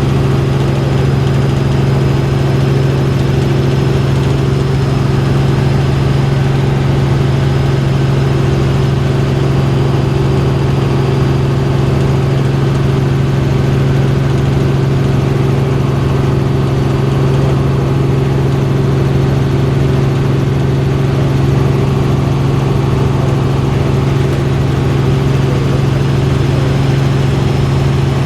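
Helicopter running steadily: a loud, unchanging drone with a strong low hum.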